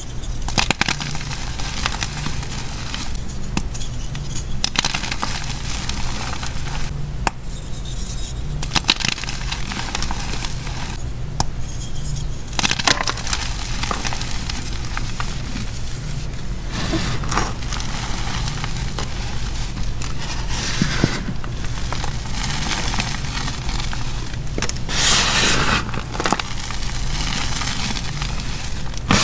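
Blocks of gym chalk being snapped and crushed by hand, then squeezed and rubbed into powder: many sharp crunches and crackles as the chalk breaks, with denser gritty rubbing as the crumbs are worked between the palms. A steady low hum runs underneath.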